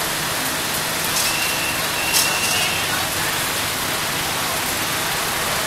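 Steady fairground din around a running double Ferris wheel: an even hiss of ride machinery. A thin high tone sounds twice between about one and three seconds in, and a sharp click just after two seconds.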